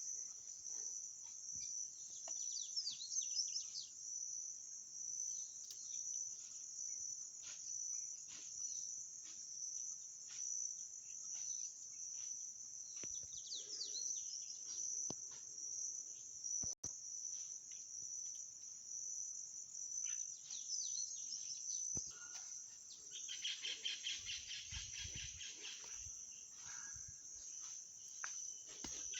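Insects, cricket-like, trilling in a steady high-pitched drone, with birds chirping now and then, most busily a little over twenty seconds in.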